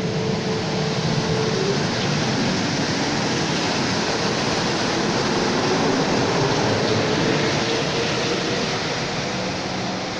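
Rubber-tyred Mexico City Metro train pulling out of the station and running past, a steady rushing noise that is loudest midway and fades near the end as the last car leaves.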